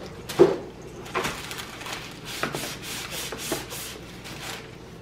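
Wax paper crinkling and rubbing as it is handled and pressed by hand, a run of short rustles with the loudest about half a second in.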